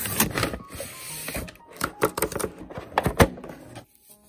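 Crinkling and rustling of a printed mailer bag being opened by hand, then several sharp clicks and taps as a plastic phone case is taken out and handled.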